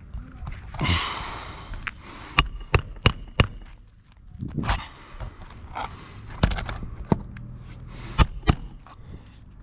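Hammer driving nails into roof shingles: a quick run of four ringing blows a few seconds in, then a few single blows and a final pair. Heavy breathing runs between the blows.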